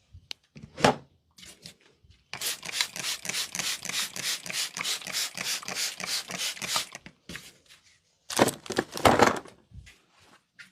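Rapid, even hand tapping of a head massage, about five strikes a second for nearly five seconds. A few louder separate strikes follow near the end.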